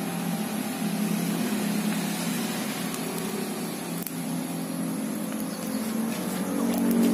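A motor engine running with a steady low hum that grows louder near the end.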